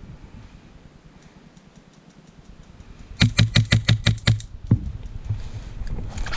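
An airsoft gun fires a rapid burst of about ten shots, roughly eight a second, lasting just over a second. Rustling follows near the end.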